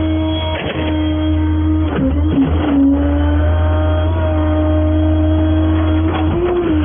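Tow truck's engine and road drone heard while driving, a steady hum whose pitch dips about two seconds in and then slowly climbs, with music playing underneath.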